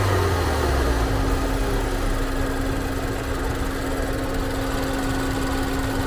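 Land Rover engine running steadily with a constant hum, its low rumble settling a little lower in pitch just after the start. It is being run after a coolant refill following overheating, to circulate the new coolant and bleed air from the cooling system.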